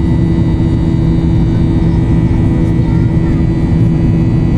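Steady, loud engine noise of a jet airliner in flight, heard inside the passenger cabin: a constant low rumble with a few steady whining tones held over it.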